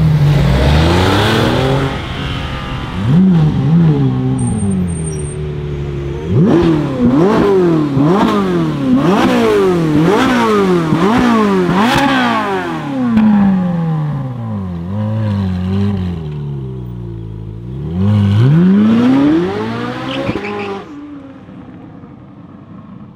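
Ferrari 458 Italia's 4.5-litre flat-plane V8 through a loud Capristo aftermarket exhaust, revved in a run of sharp blips about one a second, then one longer rev before the car pulls away and the sound fades.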